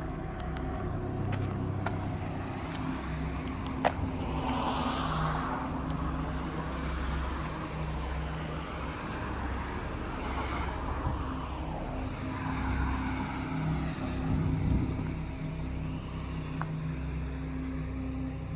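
Car driving on a road: a steady engine and road hum, with several rushes that swell and fade as other vehicles pass, and a single sharp click about four seconds in.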